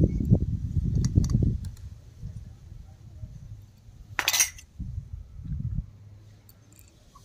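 Miniature toy kitchenware being handled and set down on concrete: muffled handling rumble with a couple of light metallic clinks from a tiny steel pot at the start, then one sharp clatter about four seconds in as a piece is put down, followed by softer handling sounds.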